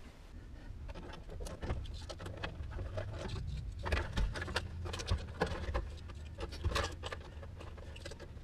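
Irregular small clicks, taps and rattles of hands working behind a car's dashboard at the back of the instrument cluster, over a low steady rumble.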